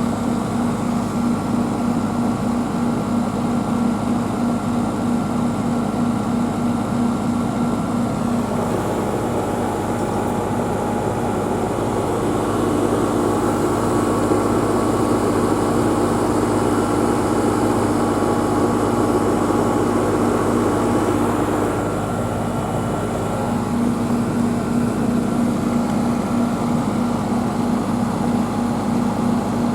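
Outdoor heat pump unit running steadily, compressor and condenser fan humming, while it is topped off with refrigerant because it runs a little low. Partway through the hum shifts slightly higher and fuller for about thirteen seconds, then settles back.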